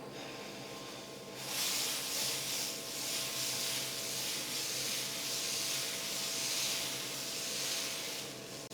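Dosa batter sizzling on a hot dosa griddle as it is poured and spread, a steady hiss that starts about a second in and fades away near the end.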